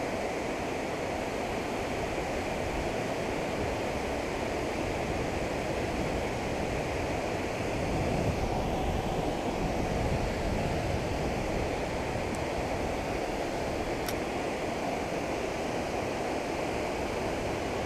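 Steady rush of river water pouring over the Fairmount Dam's low spillway crest and churning below it, with two faint ticks past the middle.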